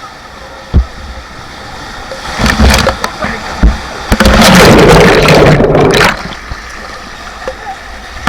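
Whitewater crashing over and around a paddle raft in a rapid, splashing and gurgling hard on the camera microphone. It builds from about two seconds in, and the loudest, densest rush of water comes from about four to six seconds in.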